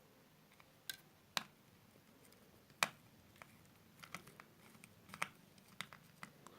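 Faint, scattered clicks and taps of small plastic parts and a small screwdriver being handled while a Bluetooth headset is taken apart. There are about half a dozen separate clicks, the sharpest one near the middle.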